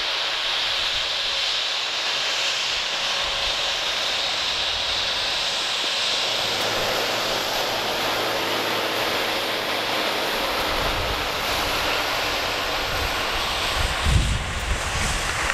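Supermarine Spitfire's Rolls-Royce Merlin V12 engine droning steadily as the aircraft comes in low and lands. Wind buffets the microphone with low rumbling gusts in the last few seconds.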